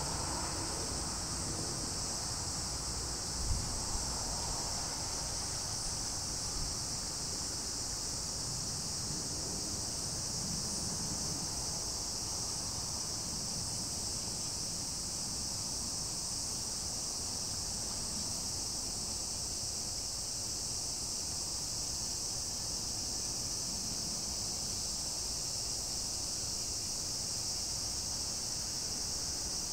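A steady, high-pitched chorus of insects that never lets up, over low background noise. There is a brief thump about three and a half seconds in.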